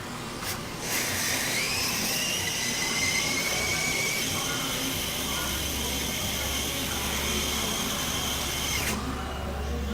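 A click, then a small electric blower motor spins up with a rising whine and hiss about a second in. It runs steadily and then switches off abruptly near the end.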